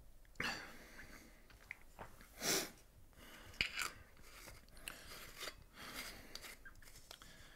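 Faint breaths from a person sitting in a small, quiet room, with a few soft clicks and rustles of small movements.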